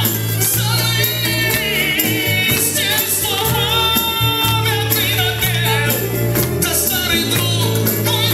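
Dance music with singing over a steady bass line.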